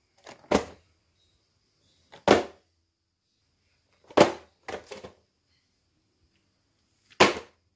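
Boxed Funko Pop vinyl figures dropped one after another onto a bed: a sharp slap of cardboard and plastic packaging each time, about five in all, two coming in quick succession around the middle.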